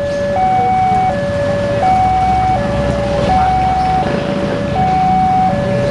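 Railway level crossing's electronic warning alarm sounding a steady high-low two-tone pattern, each tone held about three-quarters of a second. A low rumble sits underneath.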